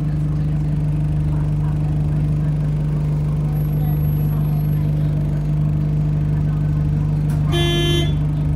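Bus engine idling with a steady low hum, heard from inside the passenger cabin. About seven and a half seconds in, a short electronic beep sounds once.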